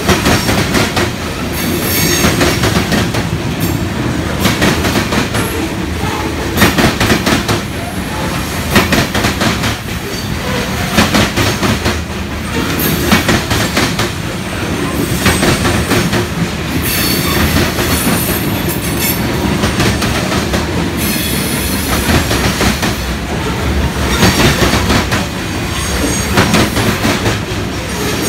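Covered hopper cars of a freight train rolling past close by: a loud, steady rumble of steel wheels on rail with rapid clicking over rail joints and brief high wheel squeals now and then.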